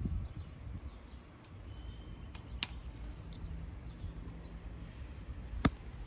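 Two sharp snips of scissors cutting string bean stems off the vine, about three seconds apart. Faint bird chirps are heard in the first couple of seconds.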